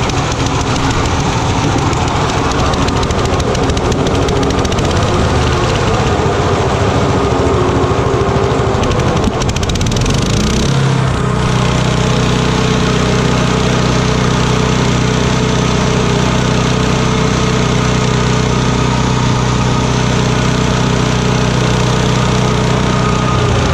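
Old wood chipper's small gas engine running loudly on choke, rough and uneven at first, then changing about ten seconds in to a steadier, even running note.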